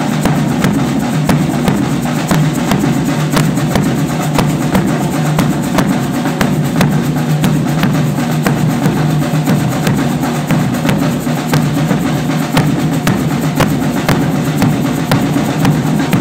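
Percussion ensemble playing together in a steady, dense groove: a rope-tensioned bass drum, smaller hand drums, a pair of congas and a metal tube shaker.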